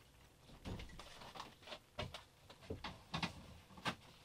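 Faint, irregular clicks and light knocks of equipment being handled, about eight of them spread over a few seconds.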